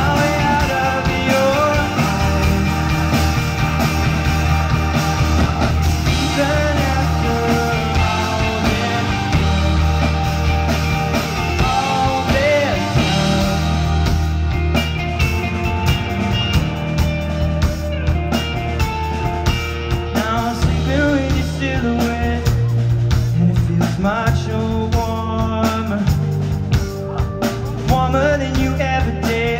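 Live rock band playing a song: electric guitars, bass guitar, keyboard and drum kit, amplified through the stage PA.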